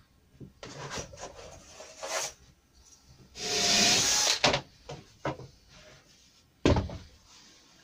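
A long timber batten being handled on a workbench: a loud scrape as it slides across the board for about a second, a few clicks, and a sharp knock near the end.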